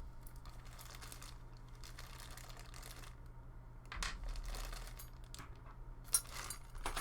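Hands handling the cooler's small plastic mounting parts: soft rustling and light clicks, with louder bursts about four seconds in and near the end, over a steady low electrical hum.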